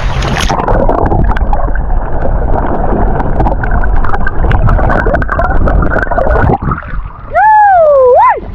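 Rough, steady wind-and-sea noise: wind buffeting the microphone and water washing and splashing around the rocks, with many small clicks. About seven seconds in, a loud pitched sliding tone lasting about a second falls and then swoops up sharply.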